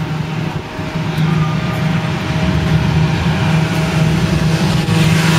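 Steady low drone of road traffic, an engine hum that holds level without breaks.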